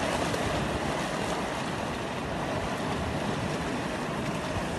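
Sea surf washing and breaking against a rocky shore, a steady rushing wash, with wind rumbling on the microphone.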